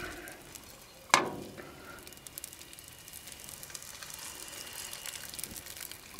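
Hot rapeseed oil sizzling and crackling in a frying pan as filled dough dumplings are set into it one by one, with a sudden loud burst about a second in.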